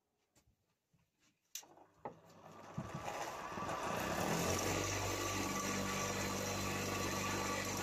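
Homemade wood lathe's electric motor switched on with a click about a second and a half in, running up to speed over a couple of seconds and then running steadily with a hum, spinning a wooden lure blank.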